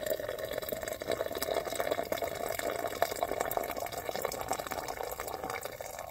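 Hot coffee pouring in a steady stream from a pot into a cup, cutting off suddenly near the end.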